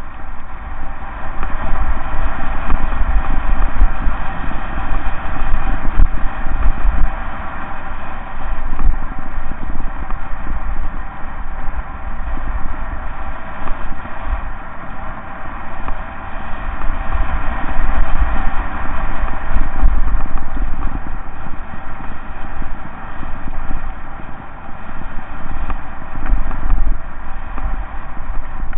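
Mountain bike descending a loose gravel track, heard from a camera on the bike: tyres crunching over stones and the bike rattling over the bumps, with wind buffeting the microphone in a low rumble that swells and fades.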